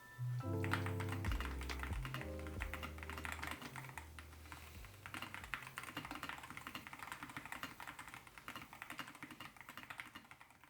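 Fast typing on a Keychron K2 HE keyboard with Gateron Double-Rail Magnetic Nebula switches and YUZU keycaps: a dense, continuous run of key clacks. Background music fades out over the first half, leaving the typing alone.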